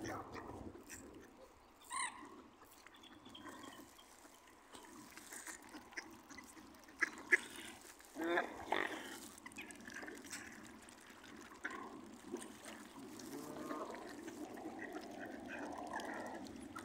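Mallard ducks quacking, with short calls scattered through and the longest about eight seconds in, over a steady low background noise.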